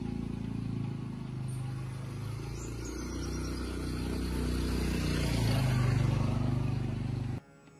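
Yanmar tractor diesel engine running, its pitch shifting and growing louder about six seconds in, then cutting off abruptly.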